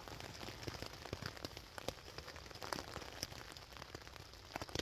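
Rain pattering on a tent, heard from inside: many irregular raindrop taps on the fabric over a faint steady hiss.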